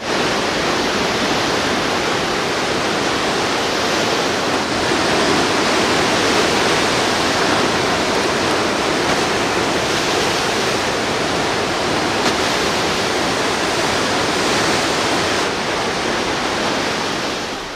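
Steady loud rush of a river in flood, water pouring over rocks with no break or rhythm.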